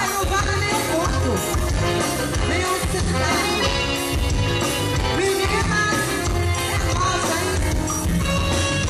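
Live forró band music, accordion and electric guitar over a steady beat, with some singing.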